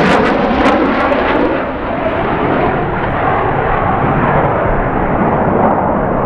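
Military jets passing and flying away: loud jet noise with some crackle at first, its hiss fading over the first couple of seconds into a steady, duller rumble.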